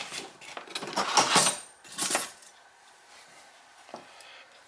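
Small metal lock parts and tools clinking and rattling, with a sharp click at the start and a short clatter of light metallic knocks about one to two seconds in.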